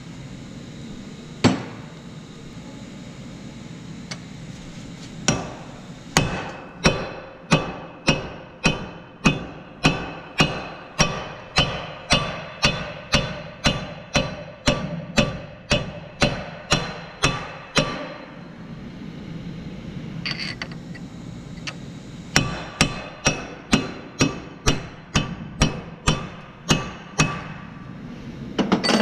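Hammer driving a steel punch held against the axle end in a car's front wheel hub, each blow ringing metallically. About twenty steady blows at roughly two a second, a pause of a few seconds, then about a dozen slightly quicker blows.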